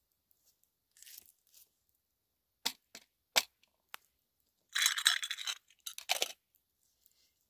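Small metal camp kettle clinking a few times as it is set down on stone, then a dense scraping clatter of about a second and a half as its metal lid is handled.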